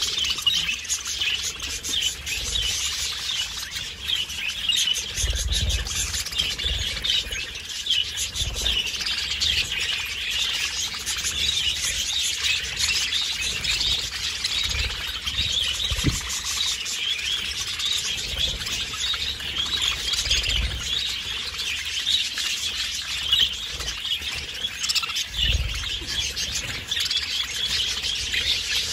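A flock of budgerigars chattering and chirping continuously, many warbling calls overlapping, with a few short low thumps now and then.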